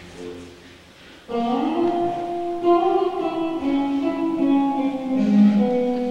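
Instrumental dance music: quiet at first, then a loud melody of long held notes comes in about a second in and moves step by step in pitch.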